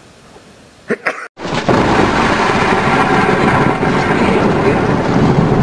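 Close thunder during a night thunderstorm: a short crack about a second in, then loud, continuous rumbling. The recording cuts out for an instant as the thunder breaks.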